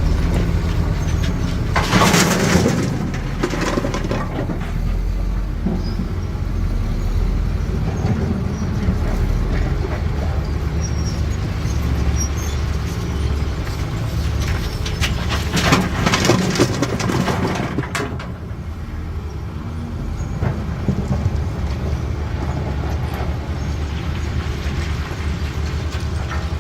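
Diesel engine of a CAT 320D excavator running steadily, with two loud spells of stone crashing and scraping as the machine works the load: one about two seconds in and a longer one a little past the middle.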